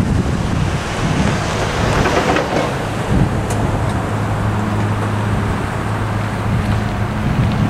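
Wind rumbling on the microphone, with a pickup truck driving past at the start, over a steady low hum.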